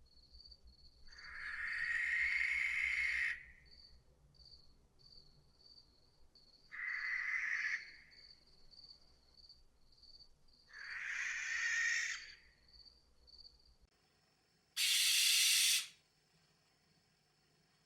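Barn owl giving three harsh, hissing calls, each one to two seconds long, over a faint, steadily pulsing insect trill. Then, in a different recording, comes a single louder and wider hiss of about a second.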